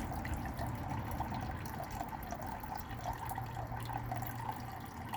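Small water fountain running, a steady trickle and splash of falling water.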